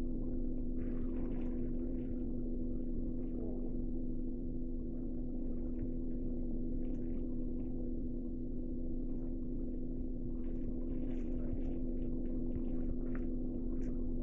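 A steady low hum made of several fixed tones, over a constant noisy floor, with only faint scattered short sounds above it.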